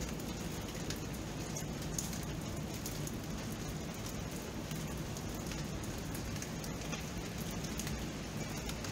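Steady rain: an even hiss with many small drops pattering and ticking on surfaces.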